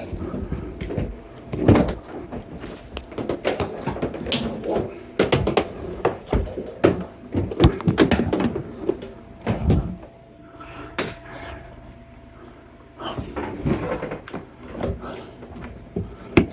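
Irregular knocks, clicks and clattering as dishwasher hoses are connected to the water and waste fittings, with a quieter stretch in the middle.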